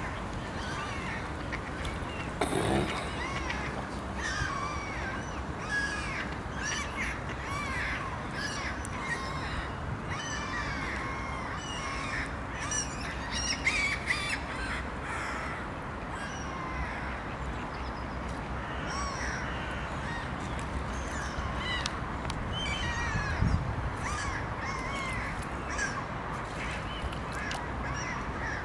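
A flock of birds calling at once: many short calls overlap steadily over a constant low background rumble.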